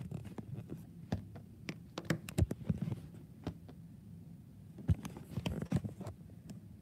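Irregular small clicks and knocks from handling at a computer desk, sharpest about two and a half and five seconds in.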